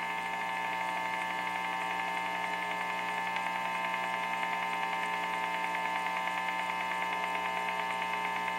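Electrical interference from an LG TV picked up by a cranked guitar amplifier: a steady buzzing hum with a rapid, rhythmic drumming pulse that runs faster and faster.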